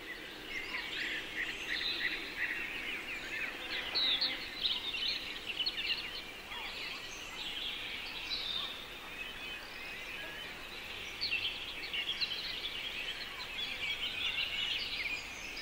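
Many small birds chirping and twittering at once: a dense, continuous chorus of short, high calls.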